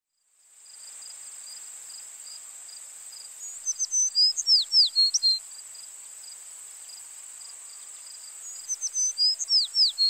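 A songbird sings the same short song twice, about five seconds apart: quick notes and steeply falling whistles. Under it runs a steady high-pitched drone of insects. The sound fades in at the start.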